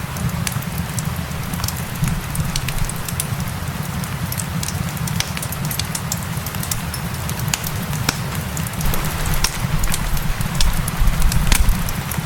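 Crackling wood fire mixed with steady rain: irregular sharp pops and crackles over a continuous hiss, with a low rumble underneath.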